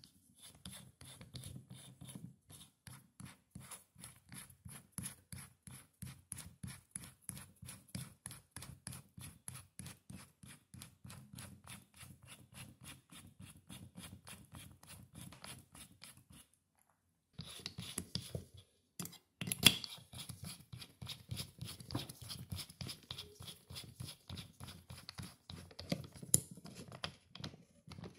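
Keyless chuck of a Black and Decker 20V drill twisted by hand, a rapid run of small clicks and rubs at about four a second. It breaks off briefly about two-thirds of the way through, then resumes with a few sharper clicks.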